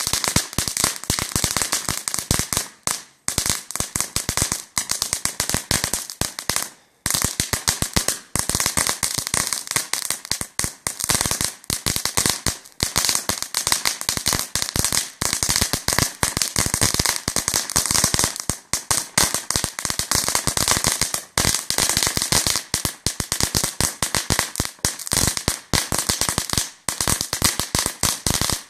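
Ground firework spraying sparks and crackling: a dense, rapid string of sharp pops that keeps going, broken by two brief lulls a few seconds in.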